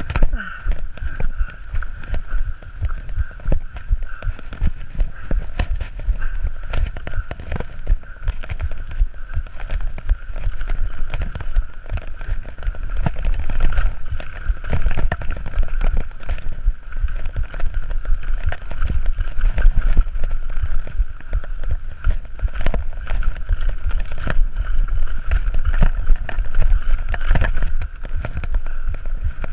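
Mountain bike rattling and clattering over a rough dirt trail at speed, with wind rumbling on the camera microphone. A constant buzzing tone runs underneath.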